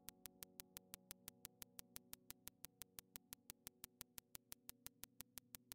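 Faint synthesizer background music fading out: held chords dying away under a quick, even tick about seven times a second.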